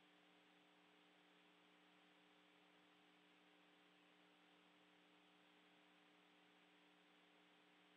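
Near silence: a faint, steady hiss with a low hum.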